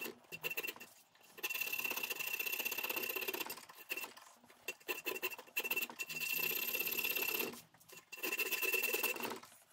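A round needle file rasping through a drilled hole in a G10 fibreglass plate, opening the hole out to a traced outline. It comes in several spells of one to two seconds each, with a thin whistling tone over the scraping.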